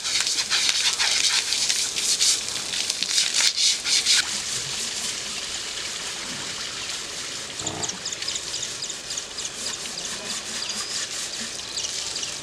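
Hose water spraying and splashing onto an elephant's hide as it is scrubbed, loud for about the first four seconds, then settling to quieter trickling and splashing water around the elephant.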